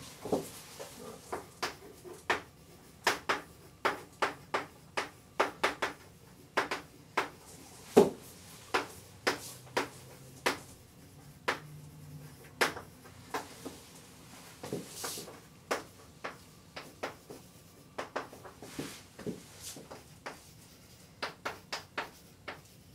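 Chalk writing on a blackboard: irregular sharp taps and short scratches as letters are written, coming in quick clusters with short pauses between words.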